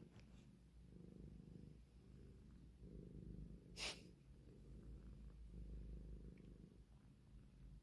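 Domestic cat purring softly, a faint low rumble that swells and fades with each breath. About four seconds in there is one short breathy puff.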